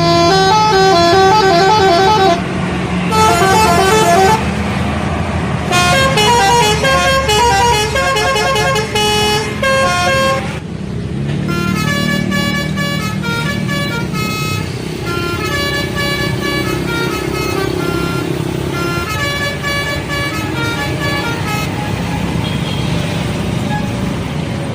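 Bus telolet horns, electric multi-tone horns, playing quick tune-like runs of notes over the low running of a bus engine. The notes break off for about a second near the middle, then more telolet runs follow, some with longer held notes.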